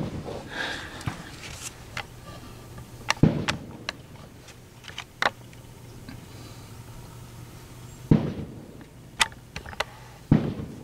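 Savage 111 bolt-action rifle in .30-06 firing: four sharp reports a few seconds apart, at the start and about three, eight and ten seconds in. Fainter clicks come between the reports.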